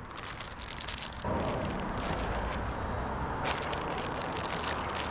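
Plastic sandwich baggie being handled, crinkling in irregular crackles, with a louder rushing noise joining about a second in.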